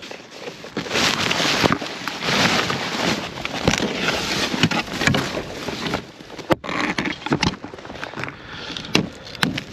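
Strong gusting wind buffeting the microphone in uneven surges, with a few sharp clicks near the end.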